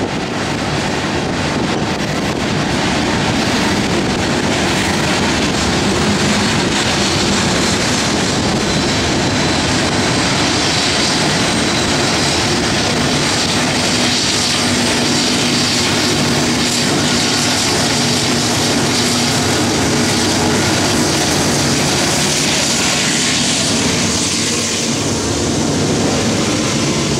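Loaded coal train rolling past: a steady rumble of steel wheels on rail under the heavy hopper cars. About halfway through, the drone of the rear-end diesel locomotive (distributed power unit) joins the wheel noise, then fades back into the rumble.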